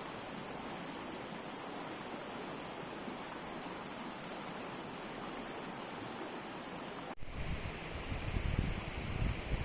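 Steady rushing of a mountain stream. About seven seconds in it cuts abruptly to a louder, rumbling rush with uneven low buffeting.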